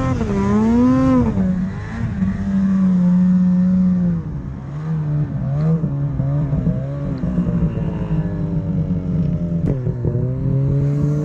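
Snowmobile engine revving up and down as the sled ploughs through deep powder, then settling to a steadier pitch.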